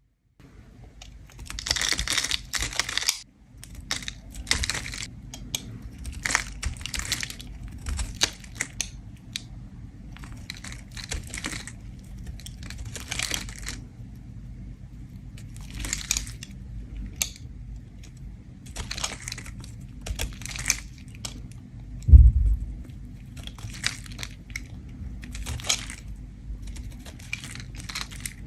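A bar of soap being scraped with a blade: short, crisp rasping strokes at an uneven pace, roughly one every one to two seconds, over a steady low hum. A single low thump about 22 seconds in.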